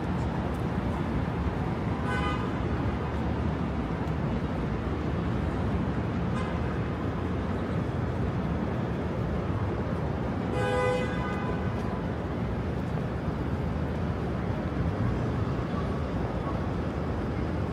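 Steady street traffic noise with vehicle horns: a short toot about two seconds in and a longer, louder honk about eleven seconds in.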